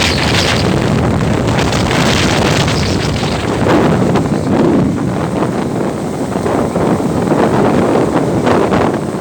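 Strong wind buffeting the microphone in loud, uneven gusts on an open ferry deck, with a shirt flapping in it.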